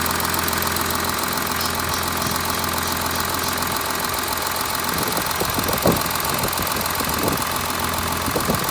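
VW Touareg 3.0 TDI V6 diesel idling cold, with the rasping, swishing extra noise from the left side of the engine that shows only while the engine is cold. A few short sharp clicks are heard in the second half.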